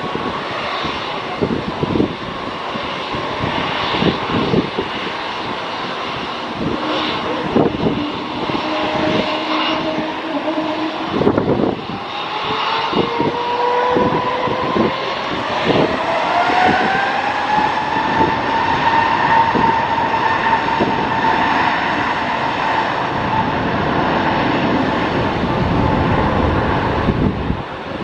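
Jet airliner engines running at the runway, a steady loud rumble with many short low thumps. A whine rises in pitch from about twelve seconds in to about seventeen seconds, then holds at the higher pitch, as the engines spool up.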